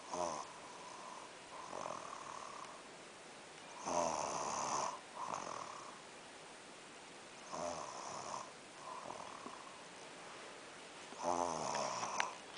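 A sleeper snoring in a steady rhythm: a loud snore about every three and a half seconds, with softer snores between them.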